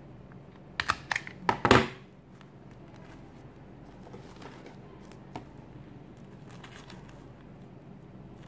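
Handheld desk stapler clacking about five times in quick succession as it is pressed through a strip of stiff, glossy fabric, the last clack the loudest. After it, faint rustling of the fabric being handled.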